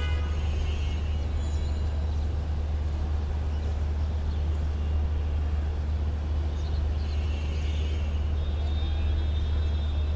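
City street traffic: a steady low rumble of vehicle engines and road noise, with a couple of brief high-pitched tones in the second half.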